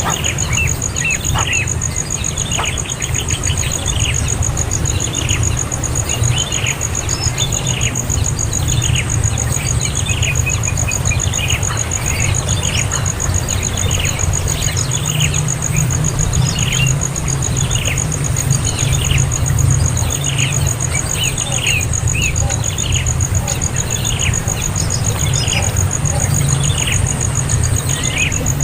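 Young bird chirping over and over, short falling chirps about once or twice a second. Under the chirps run a steady low hum and a steady high pulsing tone.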